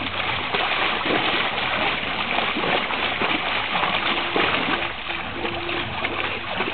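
Shallow pool water splashing and churning without a break as a dog paws and wades in it.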